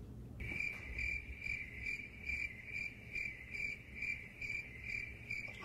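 Crickets chirping in a steady pulsing trill, about two and a half chirps a second, starting suddenly about half a second in and cutting off abruptly near the end, like an edited-in sound effect filling a silence.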